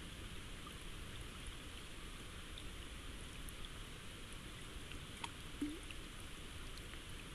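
Rain falling on a river's surface: a steady hiss with scattered small drop ticks, and one short, louder low thud about five and a half seconds in.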